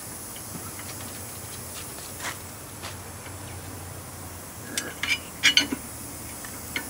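A few light metal clicks and clinks, most of them in a quick cluster about five seconds in, as a new wheel stud is worked by hand into a trailer wheel hub.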